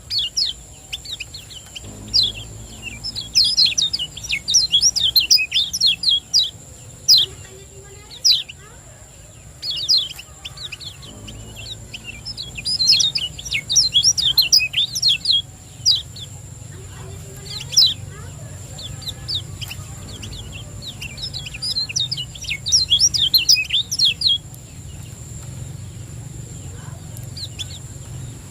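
Kecial kuning white-eye singing rapid, high chirping phrases in three fast bursts, with single sharp notes in between, over a steady low background hum.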